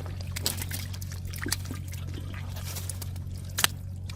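Water trickling and splashing in small irregular bursts as hands move through it, with one sharper splash about three and a half seconds in, over a steady low hum.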